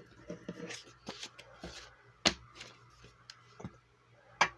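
Hands handling paper: soft rustles and light taps, with two sharper clicks about two seconds in and near the end.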